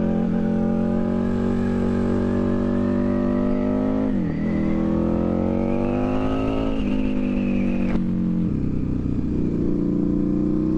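KTM motorcycle engine pulling through the gears. Its pitch climbs, dips at a gear change about four seconds in, climbs again, then falls back about eight seconds in and holds steady.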